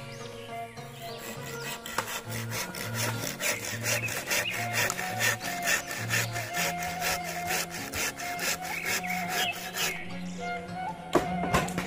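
Hand saw cutting through a green bamboo culm in a steady run of back-and-forth strokes, stopping near the end. Background music with held bass notes plays underneath.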